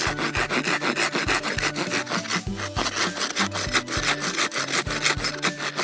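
Hand saw cutting a notch across a split stick of firewood, in quick, even back-and-forth strokes, several a second.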